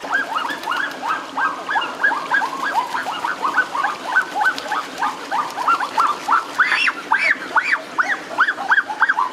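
A flock of ducks calling over and over, many short rising-and-falling calls overlapping, several a second, over the steady rush of stream water.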